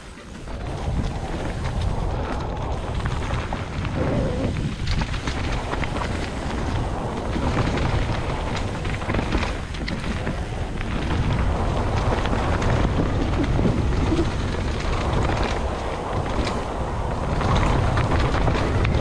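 Wind buffeting the microphone during a fast downhill descent, over a steady low rumble with many scattered knocks and rattles, a little louder near the end.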